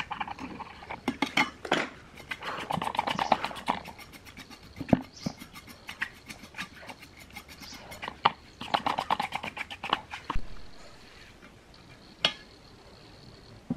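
A small metal scraper scratches old foam-surround residue and glue from the edge of a subwoofer cone and its metal frame, in bursts of quick scratching, clicking strokes. Quieter from about ten seconds in, with one sharp tap near the end.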